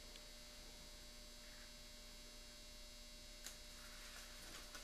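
Near silence: a faint steady electrical hum, with one faint click about three and a half seconds in.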